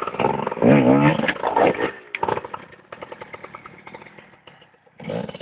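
Gas Gas enduro motorcycle's engine revved in quick blips, its pitch rising and falling several times, then dropping to a faint, even pulsing at low revs.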